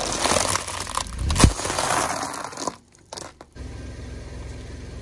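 A bag of dry tube pasta crushed under a car tyre: the plastic packaging crinkles while the pasta crunches and cracks, with one loudest crack about a second and a half in. The crunching stops after about two and a half seconds, leaving a low steady rumble.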